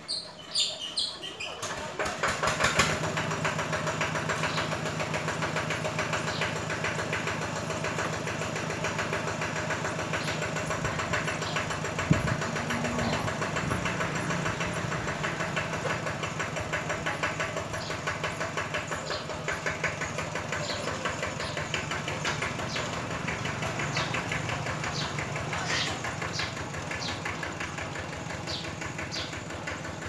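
An engine idling steadily, starting about two seconds in, with one sharp knock near the middle. Short high bird chirps come at the start and again through the second half.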